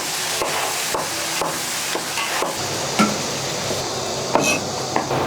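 Kitchen utensil work over a steady hiss: sharp clicks about twice a second, with a louder knock about three seconds in.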